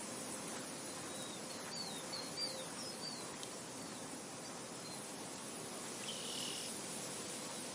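Steady wind with gulls calling faintly: a quick run of short, high calls about two to three seconds in, and one longer call around six seconds in.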